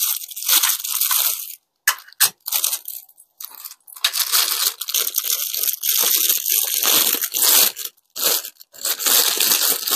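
Packaging being pulled open by hand: crinkling and tearing in irregular bursts with short pauses, most continuous from about four seconds in.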